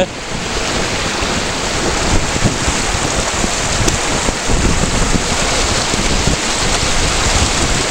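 Shallow rocky stream rushing over stones in a steady wash of water noise, with wind gusting across the microphone in low, uneven rumbles.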